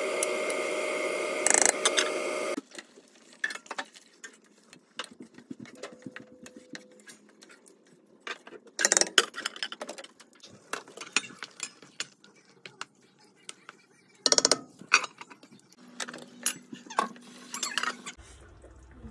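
Aluminium pan lid clinking and knocking against a metal pan as it is handled, in scattered knocks with louder clatters about nine, fourteen and seventeen seconds in. A steady hum with several tones runs at the start and cuts off abruptly about two and a half seconds in.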